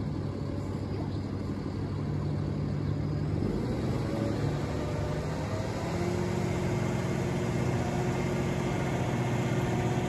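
Boom truck crane's engine and hydraulics running as the telescopic boom extends and raises. The drone rises in pitch about three and a half seconds in, then holds steady at the higher pitch.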